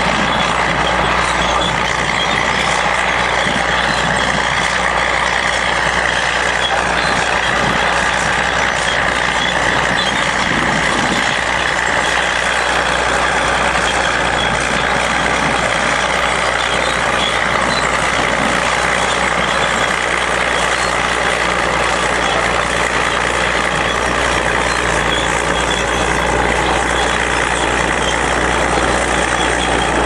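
Crawler tractor's diesel engine running steadily under load while pulling a multi-furrow plough.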